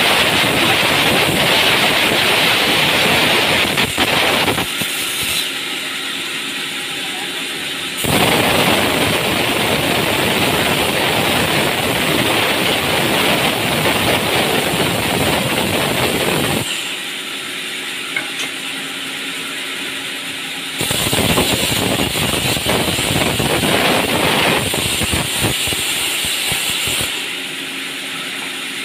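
Large sawmill band saw ripping a log lengthwise. The blade cuts with a loud, hissing noise in three long stretches, and in the two gaps between them, about five seconds in and again past sixteen seconds, the saw runs more quietly with a steady hum.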